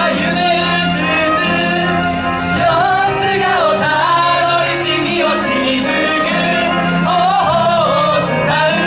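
Yosakoi dance music with a singing voice carrying a bending melody over a steady bass line and percussion.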